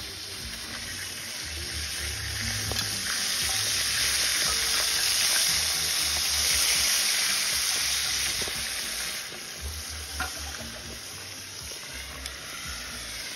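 Hot oil sizzling as battered pieces deep-fry in a pan. The sizzle swells to its loudest midway and eases off toward the end.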